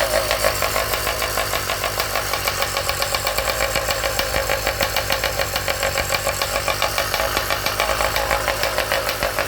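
Motorized bicycle's small engine running steadily with an even, fast pulsing, just after starting on the first pull.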